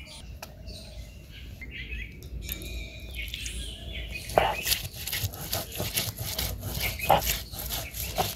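Stone grinding on a shil-pata, the hand stone worked back and forth over the flat stone to crush onion and garlic into a spice paste. The rhythmic scraping strokes, about three a second, start about four seconds in.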